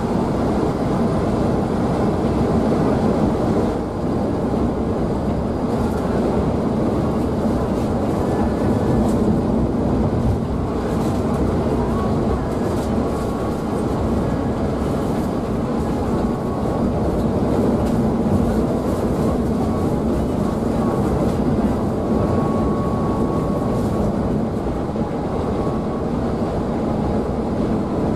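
Steady cabin noise of a Scania K360iB coach cruising on a highway: engine drone mixed with tyre and road noise, unchanging throughout.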